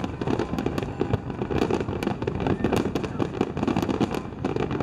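Fireworks display going off: a dense, continuous run of rapid bangs and crackles.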